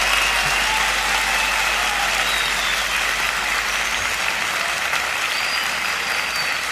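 Audience applauding and cheering at the end of a song, with a few whistles, slowly fading out.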